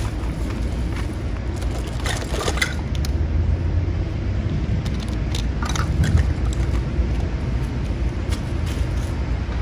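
Plastic toys clattering and scraping as they are handled in a plastic bag, in short clusters about two seconds in and again near the middle, over a steady low outdoor rumble.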